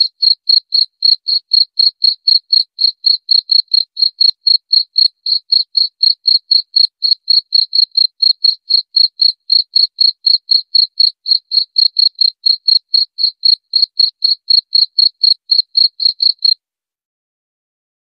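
Cricket chirping: an even train of short, high chirps, several a second, all on one pitch, that stops suddenly about sixteen seconds in.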